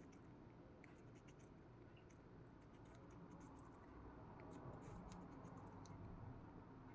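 Faint, scattered small clicks and scratches, barely above near silence: a cockatiel pecking and nibbling at pieces of apple.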